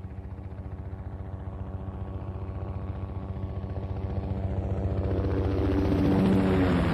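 Helicopter flying toward the listener, its rotor beating in a fast, even rhythm over a steady engine drone, growing steadily louder as it approaches.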